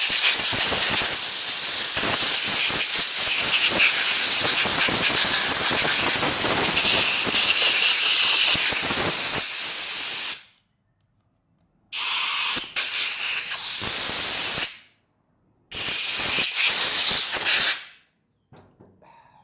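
Compressed air from an air-hose blow gun with a long metal nozzle hissing through the ports of a GY6 go-kart carburetor, blowing out its passages during cleaning. One continuous blast of about ten seconds, then, after a pause, two shorter blasts of two to three seconds each and a brief puff near the end.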